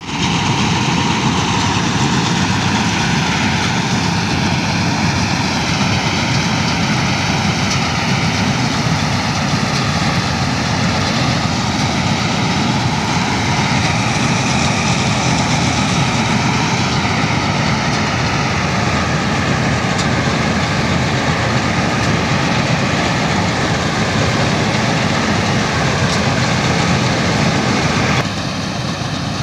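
Self-propelled combine harvester running: a loud, steady engine and machinery din with a faint wavering whine over it. It drops abruptly in level about a second before the end.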